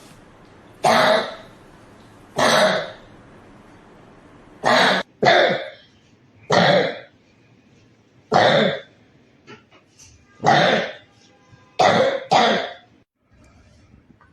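A boy's chronic cough: nine loud coughs spaced every second and a half to two seconds, twice coming as a quick pair. It is the sign of a persistent cough that has gone on for weeks without a diagnosed cause.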